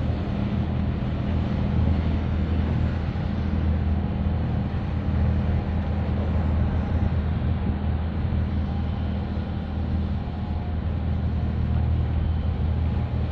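Low, steady hum of marine diesel engines from a large container ship and the small boat running alongside it as they pass close by.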